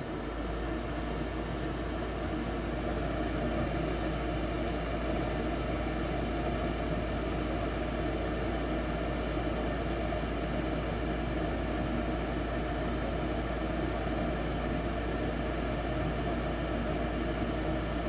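Goodman gas furnace's draft inducer fan starting up and then running with a steady whir, during the pre-ignition stage while the hot surface igniter heats before the gas valve opens.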